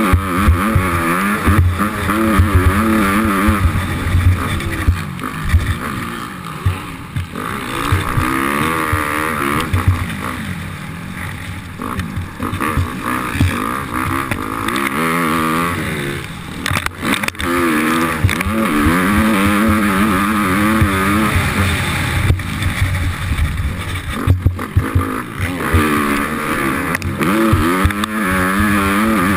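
Motocross bike's engine heard from on board, revving up and falling away again and again as the rider accelerates, shifts and backs off around the track, with frequent dull knocks in the low end.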